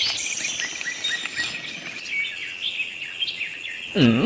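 Birds chirping in a rapid run of short, high chirps, with a steady high tone joining about halfway through. Near the end a brief voice-like sound dips down in pitch and rises again.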